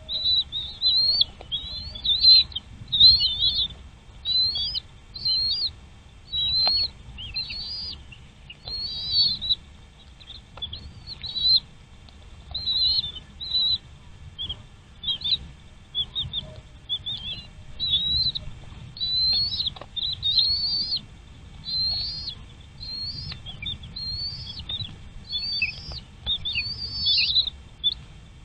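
Nestling birds chirping in the nest, an unbroken string of short, high-pitched calls several a second: begging calls of chicks waiting to be fed. A low rumble runs underneath.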